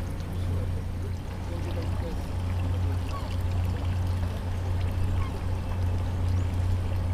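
Small motorboat at sea: a steady low engine drone with water splashing and rushing along the hull.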